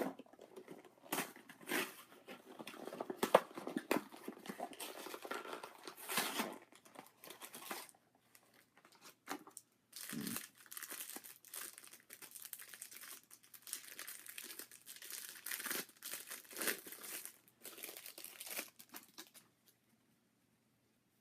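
Trading-card packaging being torn open and handled: irregular crinkling and ripping of the wrapper and cardboard of a hanger box of cards, with a short pause in the middle, stopping about 19 seconds in.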